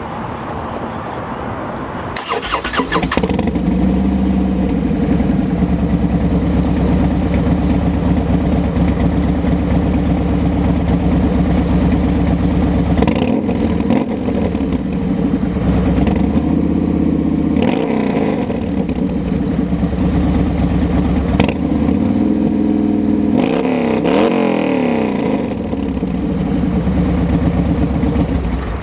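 2014 Harley-Davidson Dyna Switchback's V-twin engine through a Vance & Hines 2-into-1 Pro Pipe exhaust, catching about two seconds in and then idling with a lumpy, steady beat. The throttle is blipped briefly a few times, the last near the end with a rise and fall in pitch.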